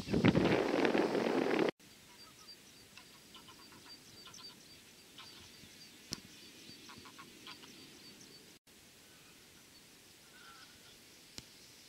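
Wind buffeting the microphone for under two seconds, cut off suddenly. Then faint birds calling in short runs of repeated notes, with a single click near the end.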